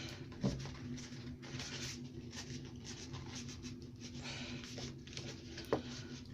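Bamboo stick scratching and scoring lines into card, scoring the imitation plank lines and cracks: a run of short scraping strokes with a couple of sharp taps, over a low steady hum.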